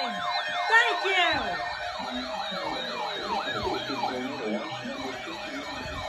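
Electronic siren sounding in quick, repeating rise-and-fall sweeps, several sweeps overlapping.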